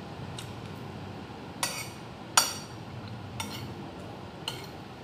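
Metal fork and spoon clinking against a plate while eating, about five short ringing clinks spread out, the loudest about halfway through.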